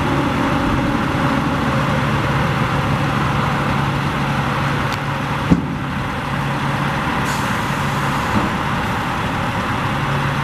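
Diesel engine of a 2007 Freightliner M2 dump truck idling steadily as its dump body is lowered, with a single sharp clunk about halfway through.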